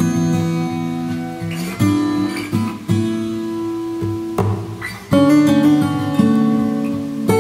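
Background music: an acoustic guitar playing chords that ring out, with a new chord struck every second or so.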